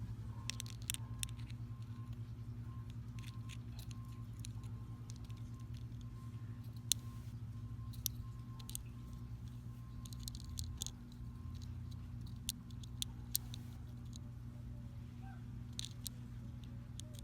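Scattered light clicks and taps of small glass pebbles being handled and set down, over a steady low hum.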